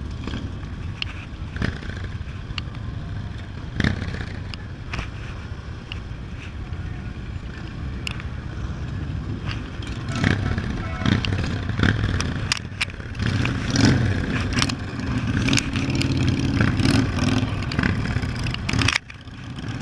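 Motorcycle engines running in slow street traffic, heard from a Yamaha Zuma 125 scooter riding among them. A deeper engine rumble grows louder about two-thirds of the way in, with scattered clicks and clatter, and the sound drops out briefly near the end.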